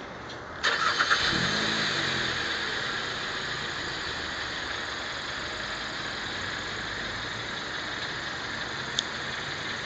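A car engine starts about a second in and settles into a steady idle, with a constant rush of noise over it.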